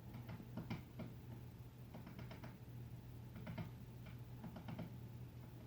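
Woodpecker pecking at a doorbell: faint short bursts of rapid taps, a cluster every second or so with gaps between.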